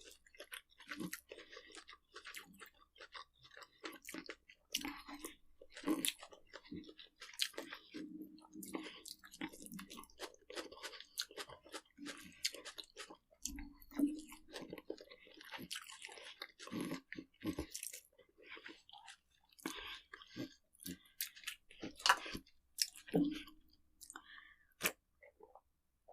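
A person chewing and crunching food, in irregular crunches.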